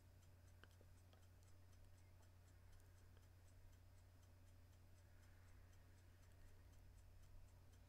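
Near silence: room tone with a faint steady low hum and faint, rapid, even ticking, about four ticks a second.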